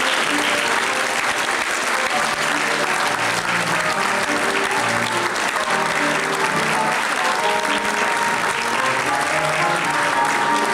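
A banquet audience applauding steadily, with music playing underneath.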